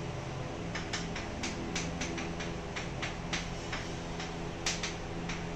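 Chalk tapping and scratching on a chalkboard as an equation is written, an irregular string of sharp taps over a steady low hum.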